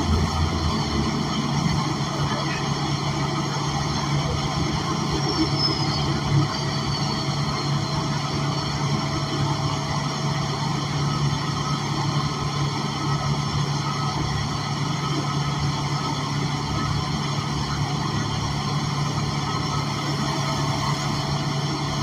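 Cabin noise of an El Dorado National Axess CNG transit bus (Cummins Westport L9N engine, Voith automatic transmission) under way, heard from a rear seat: a steady low engine and drivetrain hum mixed with road noise. A faint high whine glides down about five seconds in, and there is a single bump just after.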